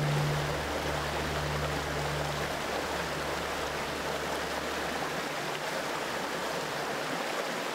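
Shallow river rushing over rocks in a small rapid, a steady even rush of water. A low steady hum underneath dies away in the first half.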